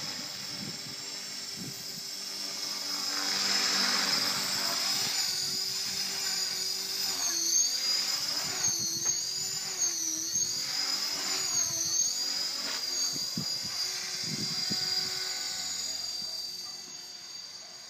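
HK450 Pro electric RC helicopter in flight, its Align 430L brushless motor and rotor giving a high whine over a lower buzz. The pitch wavers up and down several times in the middle as it manoeuvres. It grows louder around four seconds in and fades near the end.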